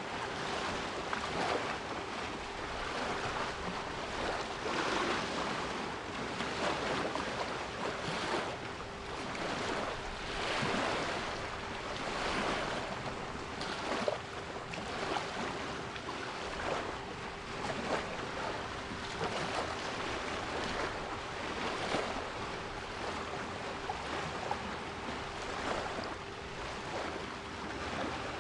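Sea waves washing and breaking in repeated swells every few seconds, with a steady 396 Hz pure tone held underneath.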